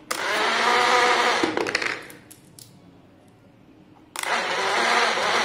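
Small DC motor of a cardboard coin-eating robot piggy bank whirring as it swallows a coin placed on its tongue. It runs twice, each run lasting about two seconds, the second starting about four seconds in.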